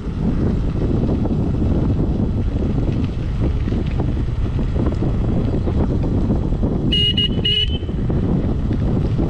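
Wind buffeting the microphone over a Hero XPulse motorcycle running along a dirt road, with two short horn beeps about seven seconds in.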